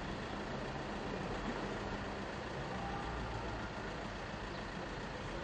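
Steady outdoor city noise: traffic and engines running, an even hiss over a low rumble with no distinct events.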